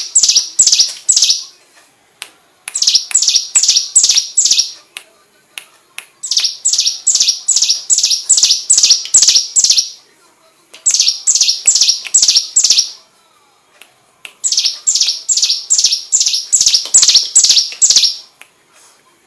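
Prenjak gunung (mountain prinia) singing in repeated runs of rapid, sharp, falling chirps, about four or five a second. Each run lasts one to four seconds, with short pauses between. These are the 'tembakan' bursts used as a master song for white-rumped shamas.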